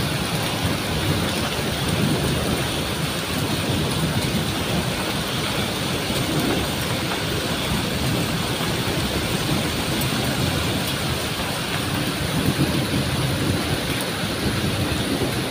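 Heavy rain from a thunderstorm falling steadily, a dense even hiss with no let-up.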